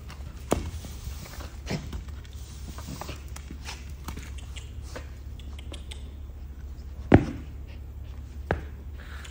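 Push broom scraping and knocking on a concrete floor as a puppy tussles with the bristles, with scattered knocks and one loud knock about seven seconds in. A steady low hum runs underneath.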